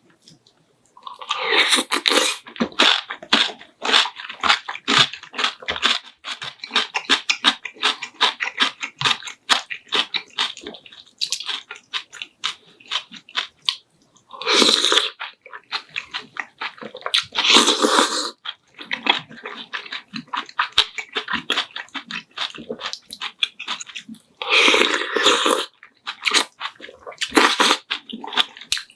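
Close-miked eating: steady wet chewing and crisp crunching of food, broken by several louder bites or mouthfuls.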